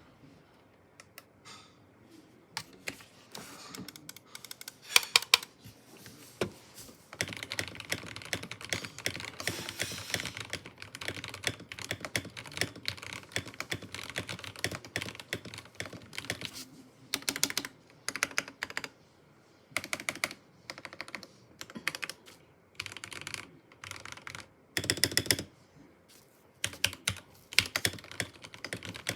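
Modded mechanical keyboard with Gateron Yellow linear switches being typed on in bursts of rapid keystrokes with short pauses between, with a few louder quick clusters of presses, like a spacebar or a rattle of keys.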